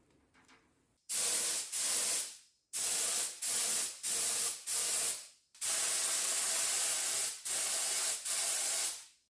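Aerosol brake cleaner spraying in repeated hissing bursts, three runs of several short squirts, used to wash grinding dust out of lathe spindle bearing parts.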